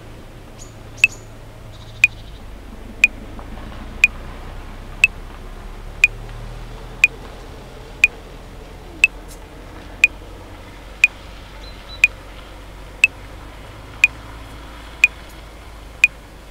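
Metronome clicking at 60 beats a minute: sixteen evenly spaced clicks, one a second, making four bars of 4/4, over a faint steady background.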